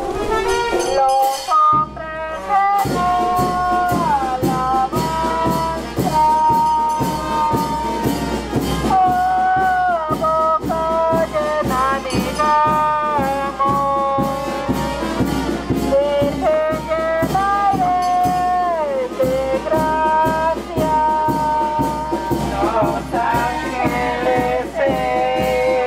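Brass band music, with horns playing a melody whose notes sometimes slide downward, over a steady drum beat. There is a short break about two seconds in, then the beat comes back.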